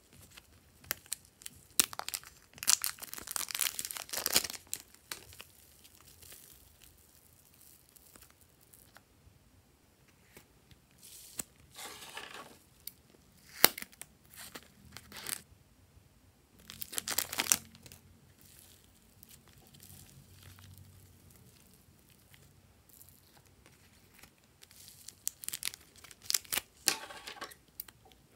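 Thin plastic packets of slime crinkling as they are handled and squeezed, with scissors snipping through the plastic. It comes in several bursts with quiet gaps, ending in a run of sharp snips and crinkles.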